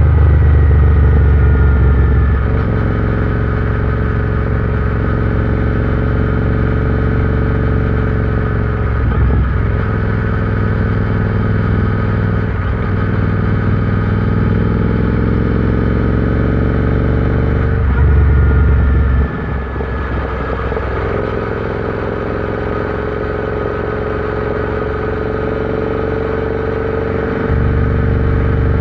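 Royal Enfield Interceptor 650's 648 cc parallel-twin engine running under way on the road. Its pitch climbs and dips with the throttle, with several brief breaks in the note.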